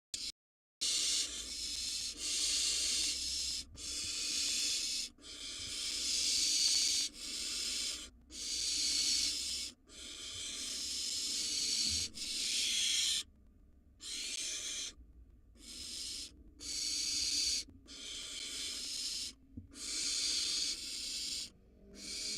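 Barn owl nestlings giving their hissing, snore-like begging calls: a long run of harsh hisses, each about a second long, following one another with short breaks.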